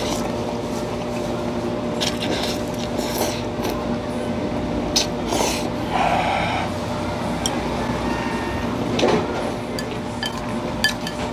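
Ramen noodles slurped in several short bursts, with chewing, over a steady machine hum with several fixed tones.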